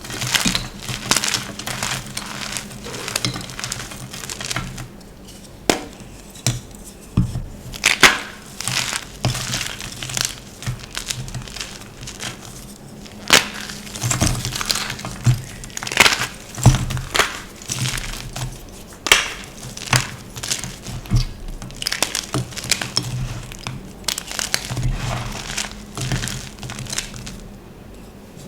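A block of gym chalk being crushed and crumbled, giving irregular sharp crunches and crackles, some louder single cracks among denser runs of small crunches.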